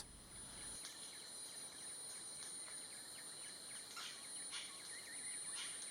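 Forest ambience: a steady, high-pitched insect trill runs throughout. Scattered short bird chirps sound over it, with a few sharper notes late on.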